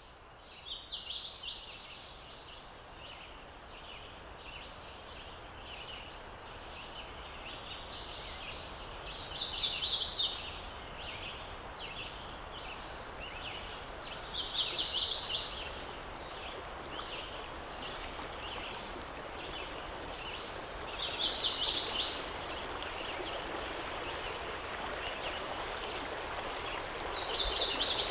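A songbird sings a short rising trill of quick high notes five times, about once every six seconds, over the steady rush of a flowing creek that grows louder toward the end.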